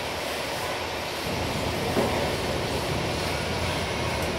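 Steady machinery noise, with a low hum that comes up about a second in.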